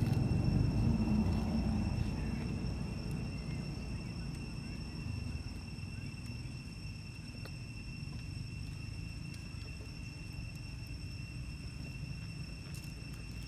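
Outdoor background noise: a low rumble, strongest in the first two seconds and then easing, under a steady, thin high-pitched whine.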